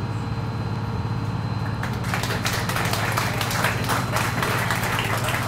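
Cruise boat's engine running with a steady low hum, and from about two seconds in, sparse light applause of scattered sharp claps.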